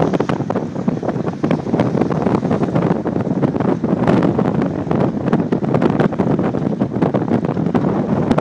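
Loud, steady wind buffeting the microphone, with a constant crackling rumble.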